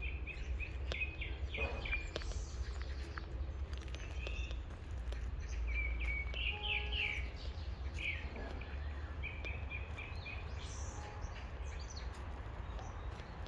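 Songbirds of an unknown species chirping in quick strings of short, repeated notes, several times over, above a steady low rumble.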